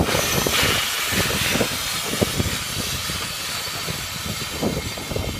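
An Ivatt 2MT 2-6-0 steam locomotive standing and venting steam low down beside its wheels: a loud, steady hiss that starts suddenly and eases a little after the first couple of seconds. Irregular low thumps run underneath.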